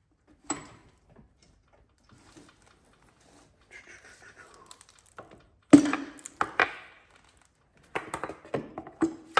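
Sharp knocks and clanks as a piston is driven to push it up out of its bore in a Continental flathead engine: a single knock about half a second in, a few heavier blows around six seconds in, then a quick run of strikes near the end.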